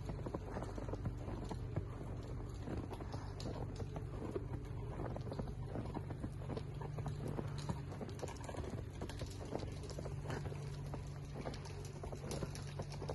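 Footsteps of someone walking on snow-covered ground, a dense irregular run of soft taps, over a steady low hum.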